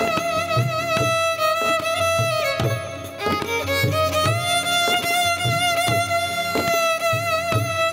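Instrumental interlude of Gujarati devotional kirtan music: a melody of long held, wavering notes over a steady drum beat. The music dips briefly about three seconds in.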